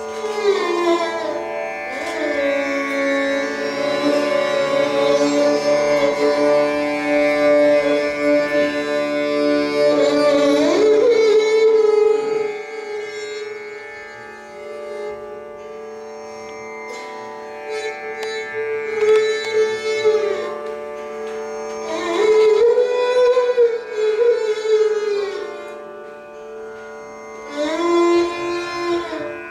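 A bowed string instrument with a keyed neck plays a slow Indian classical melody of long, sliding notes over a steady drone, with no tabla. A long loud phrase runs for about the first twelve seconds, the playing turns softer for a while, and then louder phrases return.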